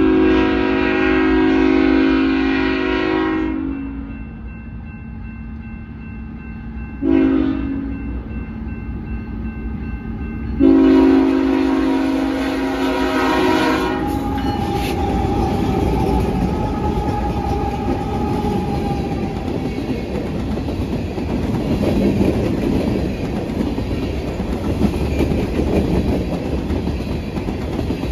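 Freight locomotive air horn sounding at a grade crossing: a long blast, a short one, then another long blast. Then the train passing, its wheels clacking over the rails as the hopper cars roll by.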